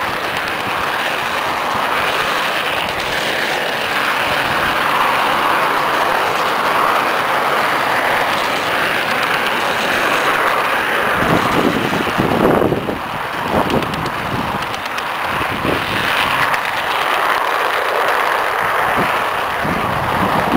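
Garden-scale model train running along its track, heard from on board: a steady rumble of wheels rolling on the rails, with a few louder clatters about halfway through.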